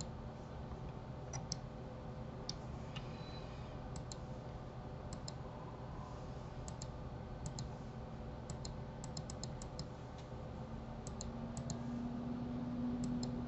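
Computer mouse buttons and keyboard keys clicking, scattered and often in quick pairs, over a low steady hum that grows louder near the end.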